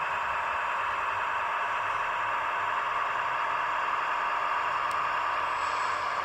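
Roco H0-scale model of a DB class 628.4 diesel railcar running past on the track: a steady rushing, rattling running noise with no change in level, and a faint tick about five seconds in.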